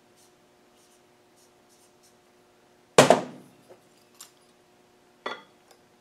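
A 300Tdi diesel piston set down hard on the metal bench with a sharp ringing clank about three seconds in, followed by two lighter knocks as pistons are handled and placed on the glass-topped scale, over a faint steady hum.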